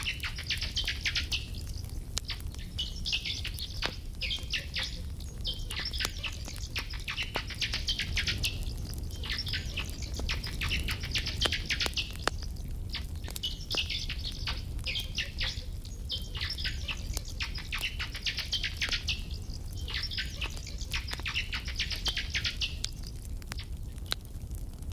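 Campfire crackling with scattered pops over a low rumble, while rapid high chirping trills come in short phrases of a second or two, about ten times.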